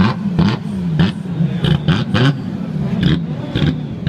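Audi quattro's turbocharged five-cylinder engine revved in quick repeated blips, the revs rising and falling about twice a second. Sharp pops from the exhaust crack out between the blips.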